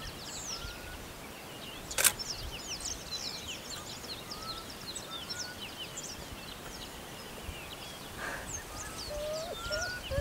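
Wild birds chirping and calling continually, many short high notes with a few lower whistles mixed in, and one sharp click about two seconds in.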